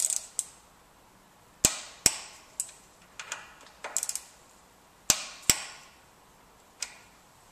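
Click-type torque wrench clicking: sharp metallic clicks with a brief ring, some single and some in quick clusters, about a dozen spaced irregularly.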